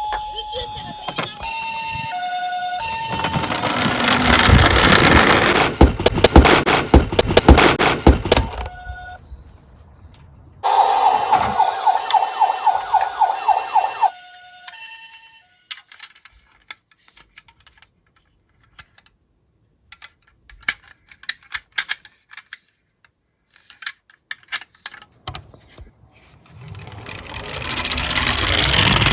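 Tomica die-cast toy ambulances rolling down a slope with a loud clattering rumble, heard twice. In between comes a rapidly pulsing siren sound of about four pulses a second, plus scattered clicks of the toys being handled. A siren tone rises and holds at the start, followed by a few short beeps.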